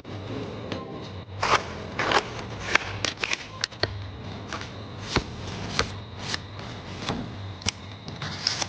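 Handling sounds from assembling clear plastic badges from printed paper pictures: irregular sharp clicks, snaps and short rustles of paper and plastic pieces.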